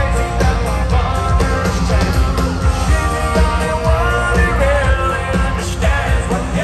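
Live country band with drums, electric guitars and bass playing loudly through a stadium sound system, with a male lead vocal singing over it, heard from the crowd.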